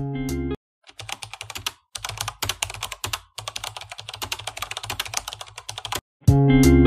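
Fast computer-keyboard typing: a rapid run of key clicks in a few stretches with brief pauses, starting about a second in. Guitar music plays for a moment at the start and comes back loudly near the end.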